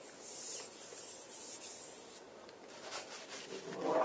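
Faint, intermittent rubbing strokes on a folding bike's metal seat post as chain lube is worked onto it.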